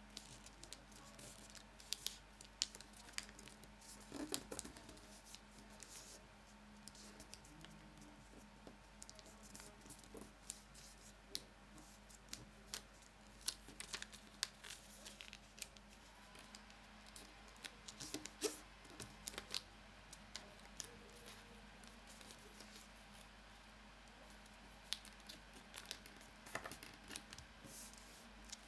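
A square of origami paper being folded and creased by hand on a wooden table: faint scattered rustles and short sharp crackles as fingers press and slide along the folds, over a faint steady hum.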